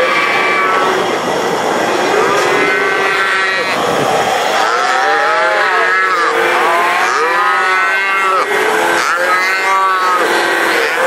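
Calves bawling, one call after another and often several at once, the calls coming thick and fast from about two seconds in.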